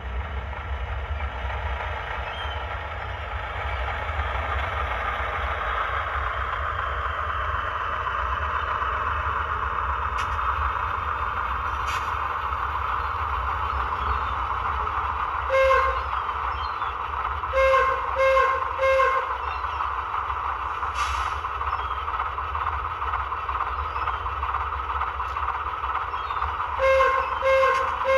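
Model locomotive's sound decoder playing a steady locomotive running sound with a low hum. About halfway through comes one short toot, then three quick toots a couple of seconds later, and two or three more near the end. A few faint clicks fall between them.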